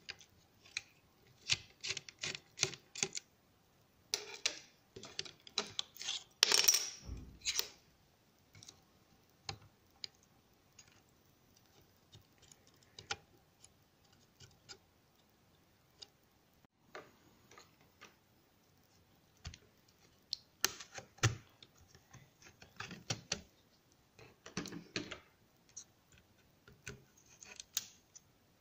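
Irregular clicks, taps and scrapes of fingers and a small metal tool working on a netbook's exposed circuit boards and plastic case, with a longer, louder scraping rub about six to seven seconds in.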